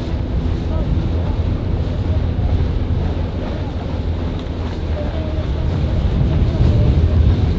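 Wind buffeting the microphone over the steady low drone of a motor launch running alongside rowing eights, with water washing past.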